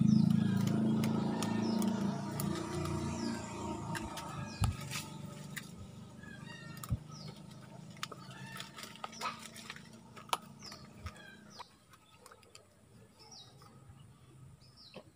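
A low steady hum that is loudest at the start and fades away over about eleven seconds. Over it come scattered clicks and knocks as a speared fish is hauled in on a hand-wound line, and small birds chirp.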